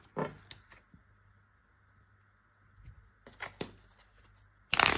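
Tarot cards being handled: quiet at first, then a few light card taps about three seconds in and a louder shuffling rustle of the deck near the end.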